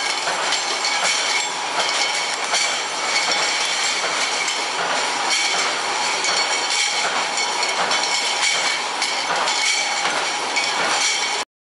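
Lug cap production line machinery and conveyor running with a steady mechanical clatter and some clinking of metal caps. It cuts off suddenly near the end.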